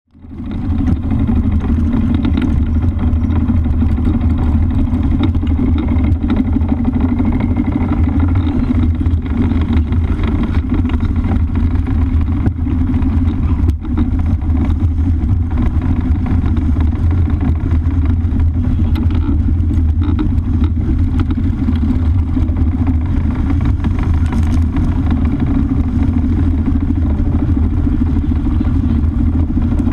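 Strong wind buffeting the microphone in a steady low rumble, mixed with water rushing and splashing along the hull of a J/92 sailboat sailing fast and heeled over in 20+ knot winds. It fades in over the first second.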